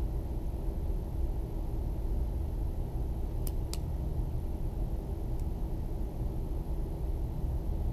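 Steady low hum and rumble of room background noise, with two faint ticks about three and a half seconds in.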